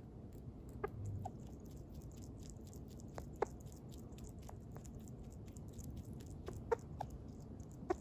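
Sugar glider giving its soft, short clucking chirps while it eats: a handful of scattered calls, the clearest about three and a half seconds in and a pair near seven seconds, over faint chewing clicks. The call is the contented sound that the owner says it makes only when the food is tasty.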